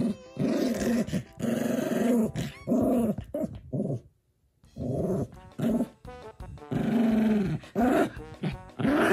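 Small dog growling in play while mouthing and biting at a person's hand, a string of growls in short bursts with a brief break partway through.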